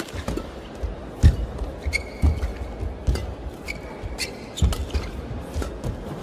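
Badminton rally: sharp racket-on-shuttlecock hits about once a second, with players' shoes squeaking briefly on the court mat and footsteps thudding between shots.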